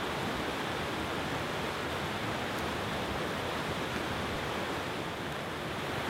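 Mountain stream rushing over boulders in a series of small white-water cascades: a steady, even rush of water.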